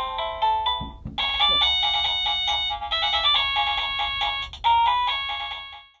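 Sanwa 400-BEL001 wireless chime receiver playing electronic melody ringtones. One tune breaks off about a second in and a brighter tune starts, then it fades out near the end.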